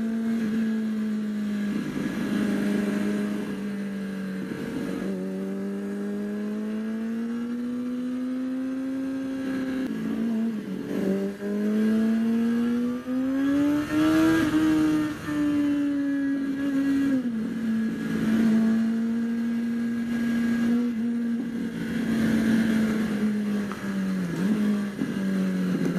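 Motorcycle engine heard from the rider's own bike while under way, over wind rush. Its note rises and falls with the throttle through the bends, with a few short dips in pitch and level, and climbs highest about halfway through.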